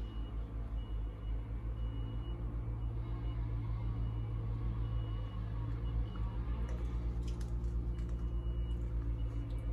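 A steady low rumble throughout, with faint short high-pitched chirps or beeps repeating roughly once a second.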